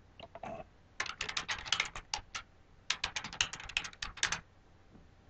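Typing on a computer keyboard: two quick runs of keystrokes, each about a second and a half long, with a short pause between them.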